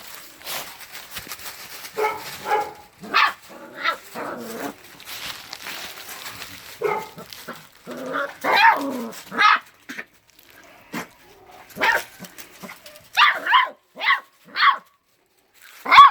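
A dog barking in short, irregular bursts of calls with pauses between them, loudest near the end.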